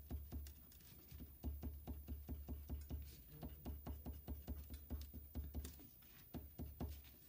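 Colored pencil making quick short strokes on construction paper over a hard tabletop: a rapid run of light taps and scratches, about five a second, drawing a rough texture.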